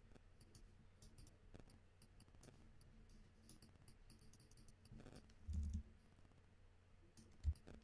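Faint, scattered clicks of a computer mouse and keyboard against near silence, with a soft low thump about five and a half seconds in and a short one near the end.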